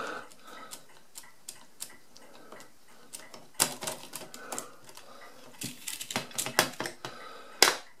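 Light metallic clicking and rattling from an Odhner calculator's result register as its shaft is drawn out and the loose number wheels are handled. Scattered single clicks give way to a quick cluster about three and a half seconds in, then a busier run of clicks near the end with one sharp, loud click.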